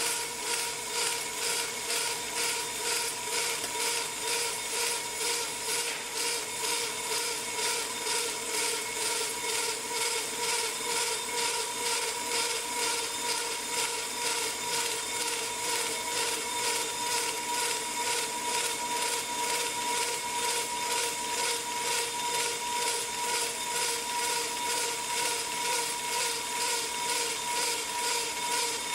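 Pro-Cut on-car brake lathe turning a brake rotor while its blades cut both faces: a steady motor whine under a metallic scraping that swells and fades about one and a half times a second with each turn of the rotor.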